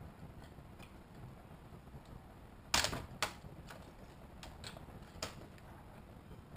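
Blade-and-plastic snaps as small 3D-printed plastic parts are pried off the print plate and cleaned up: a few sharp snaps, the loudest two about half a second apart near the middle, followed by lighter clicks.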